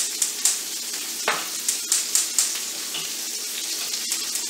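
Ground-beef hamburger patties sizzling in a grill pan over a high gas flame: a steady frying hiss broken by frequent sharp crackling pops of spattering fat.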